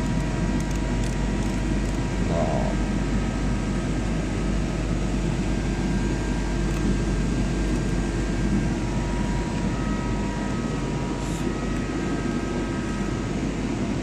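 DMG CNC lathe running, a steady machine drone with a low hum and several thin high whining tones; about nine to ten seconds in, one whine drops out and a slightly lower one takes over.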